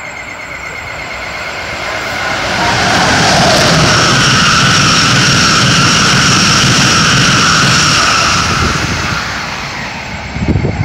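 Amtrak Northeast Regional passenger train, led by a Siemens ACS-64 electric locomotive hauling Amfleet coaches, passing through a station at speed: the rush of wheels on rail and moving air swells over a few seconds, stays loud for about five, then fades away as the train recedes.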